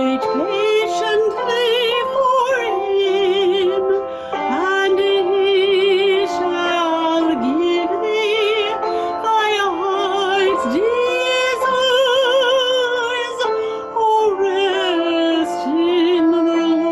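A woman soloist singing in a trained, operatic style with wide vibrato over a held instrumental accompaniment. She pauses for breath about four seconds in and again near the end.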